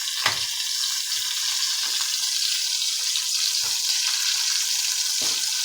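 Food sizzling and frying in a hot pan over the fire, a steady hiss, with one sharp knock just after the start.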